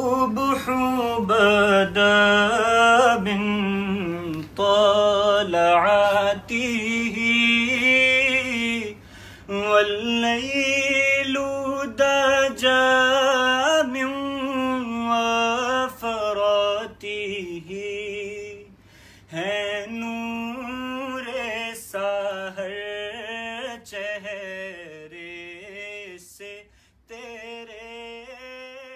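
A singer's voice in a slow, chant-like style, holding long wavering notes with short breaks between phrases, fading down near the end.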